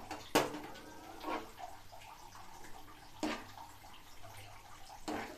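Steel ladle scraping and clinking against a pan as sticky sweet rice is scooped out into a bowl: four short scrapes, the loudest about half a second in, the others roughly a second or two apart.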